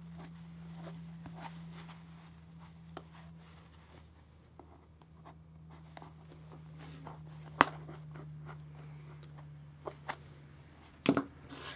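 An awl pushed through faux-fur fabric and hands working the fur: faint scratching and rustling with scattered small clicks, one sharper click about 7.5 seconds in and a few more near the end, over a steady low hum.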